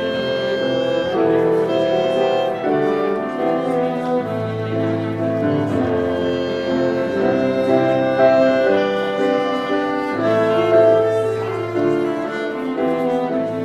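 Instrumental music for couples dancing, with long held melody notes over sustained bass notes.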